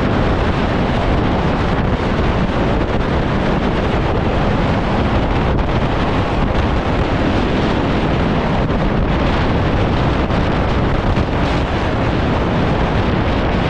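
Strong wind buffeting the microphone of a deck camera on an offshore racing yacht under sail, over a steady rush of sea and water along the hull. The noise is loud and even throughout, with no distinct knocks or tones.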